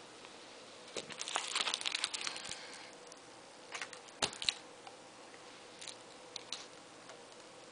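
Small poodle pawing and mouthing a dog keychain: a crinkling rustle for a couple of seconds from about a second in, then a few sharp clicks of the keychain's metal ring around the middle, and lighter ticks later.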